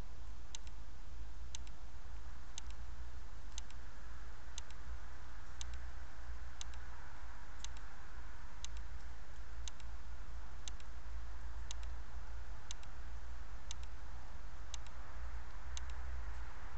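Trail camera self-noise: a sharp double tick about once a second, regular as a clock, over a steady low electrical hum and hiss.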